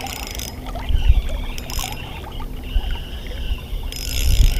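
River water flowing and lapping close to the microphone, with a low rumbling buffeting that surges about a second in and again at the end.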